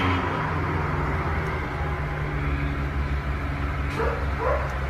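A dog giving a few short, high whines about four seconds in, over a steady low hum.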